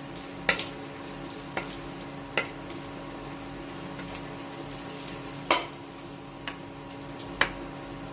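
Butter melting and sizzling with oil in a hot kadai, a soft steady frying hiss over a constant hum. A few short sharp clicks come through it at uneven intervals.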